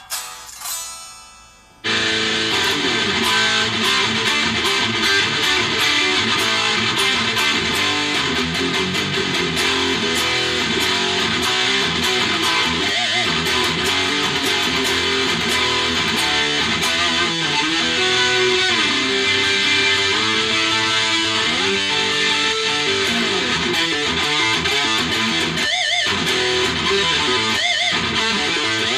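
Ibanez ART300 electric guitar: a few quiet picked notes ring and fade, then about two seconds in it comes in loud and is played continuously, with notes and chords shifting throughout.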